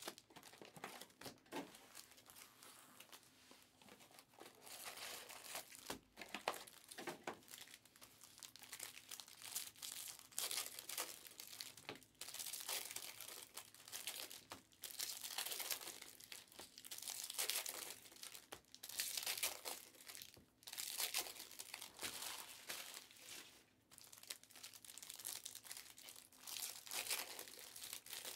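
Foil wrappers of Panini Mosaic Fast Break basketball card packs crinkling and tearing as they are handled and ripped open, in irregular bursts.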